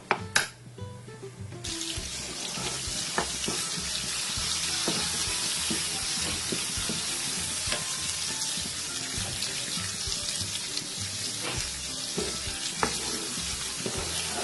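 Ground masala paste frying in hot oil in a nonstick pan, a steady sizzle that starts suddenly about two seconds in. A plastic spoon knocks on the pan twice at the start and scrapes and taps now and then while stirring.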